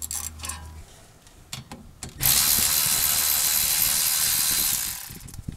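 Cordless electric ratchet running steadily for about two and a half seconds, spinning out a brake caliper pin bolt, after a few light clicks from the tools.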